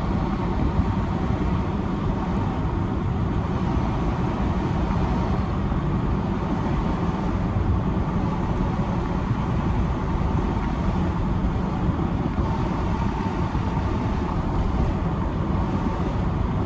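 Steady road rumble of a car driving along, heard from inside the car.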